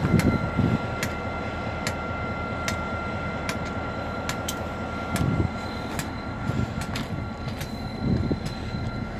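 EMD SD40-2 diesel locomotive, its 16-cylinder two-stroke engine idling with a steady low drone and a steady high whine. Sharp clicks come every half second to a second, with crunching steps on the track ballast.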